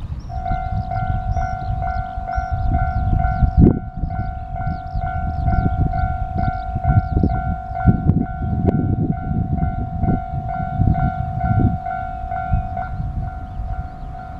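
Japanese railway level-crossing alarm starting up about half a second in: the crossing's electronic bell rings over and over, two or three strikes a second, over a steady tone. This is the signal that the crossing is activated for an approaching train. Low rumbling with a few knocks underneath.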